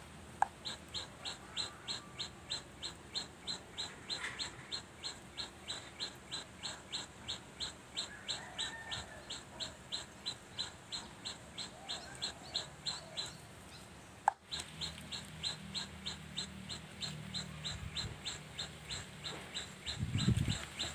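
High, evenly repeated chirping, about three chirps a second, running on without pause. A single sharp click near the middle briefly interrupts it.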